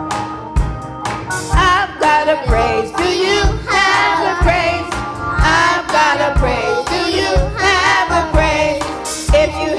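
Youth choir singing a gospel song with a live band: kick drum keeping a steady beat about twice a second, with the voices coming in about a second and a half in.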